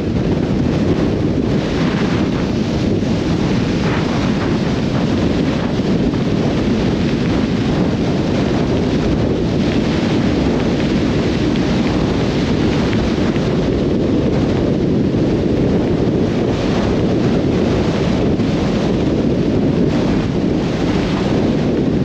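Blizzard wind buffeting the microphone of a camera mounted outside a moving car: a loud, steady low rumble of wind noise, with the car's tyres on snowy road underneath.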